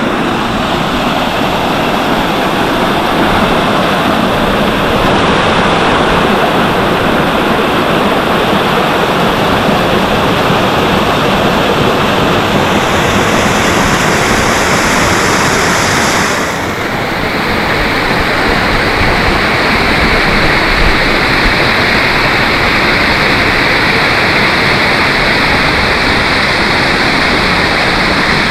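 Small waterfall pouring into a rock pool: a loud, steady rush of falling water. Its tone shifts for a few seconds about halfway through.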